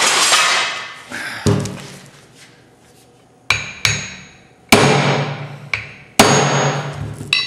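A steel hammer head on a newly fitted handle is knocked down against the edge of a piece of railroad track to straighten it on the handle. A loud clatter at the start is followed by about seven sharp metal-on-metal knocks, the hardest ones ringing briefly.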